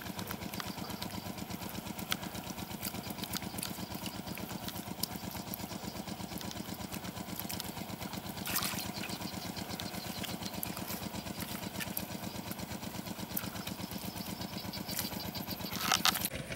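A small engine running steadily at idle, with an even, rapid pulse. Near the end there is a short, louder noise as a hoe strikes the mud.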